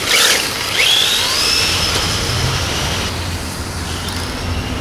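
Radio-controlled drift car passing close with a short rush of noise, then its high motor whine rising in pitch and holding as it drives off. The whine fades about three seconds in and starts again near the end.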